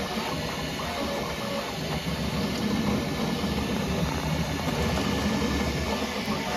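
Bambu Lab X1 Carbon 3D printer printing: its motors whir and buzz in quickly changing tones as the print head darts about, over a steady mechanical hum.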